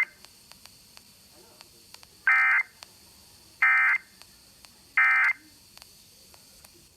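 Three short bursts of Emergency Alert System digital data tones, the end-of-message code that closes a required weekly test. Each burst lasts about a third of a second, and they come about 1.3 s apart.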